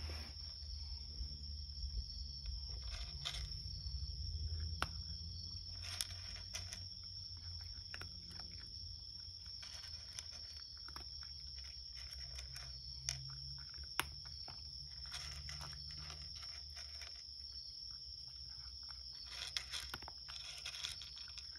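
Cat crunching dry kibble: a scatter of small, irregular crunches and clicks as it chews. A steady high insect trill runs behind it.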